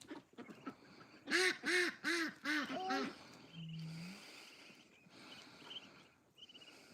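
A duck quacking, a quick run of five loud quacks, the last ones shorter, followed by faint high peeping.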